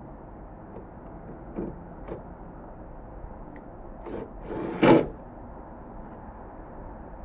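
Handling noises: a few small clicks and knocks, then a louder scraping rustle that ends in a sharp clunk about five seconds in.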